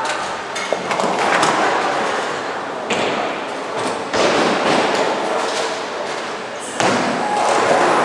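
Bowling alley din: balls rolling down the lanes and pins crashing on neighbouring lanes, a steady clatter with sudden louder crashes about three, four and seven seconds in.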